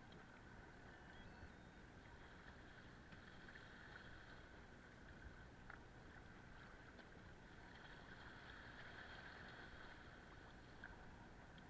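Near silence: a faint steady hiss with a couple of tiny ticks.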